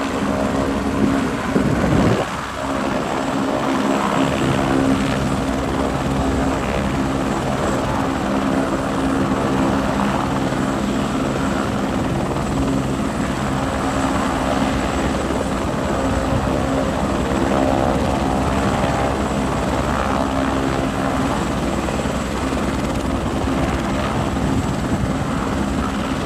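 Helicopter running loudly and steadily, its rotor beating in a continuous pitched drone. A brief louder burst comes about two seconds in.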